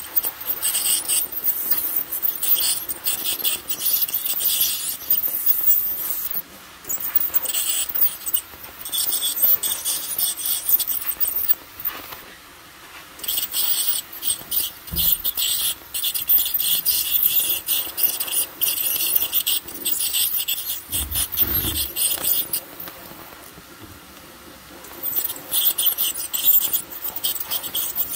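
Ultrasonic dental scaler working along a small dog's teeth: a high, crackly hiss with rapid clicking as the tip chips off tartar. It comes in stretches of a few seconds with several short pauses, and a couple of dull bumps come midway.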